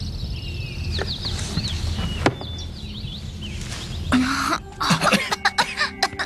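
Cartoon lion coughing in a rapid fit, starting about four seconds in, after a puff of plant pollen in his face. Faint chirping sounds come before it.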